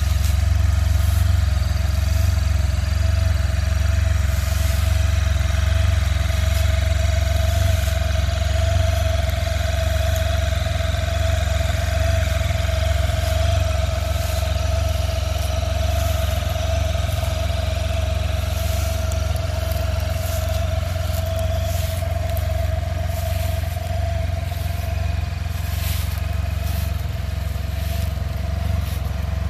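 Can-Am Spyder F3-T's three-cylinder engine idling steadily, with faint crunching of dry leaves underfoot.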